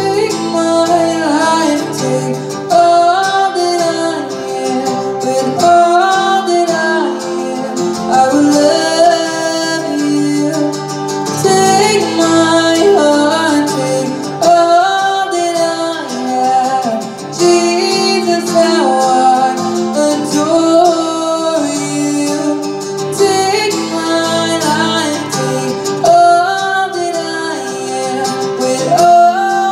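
A woman singing live with an acoustic guitar accompaniment, in a slow pop-worship style.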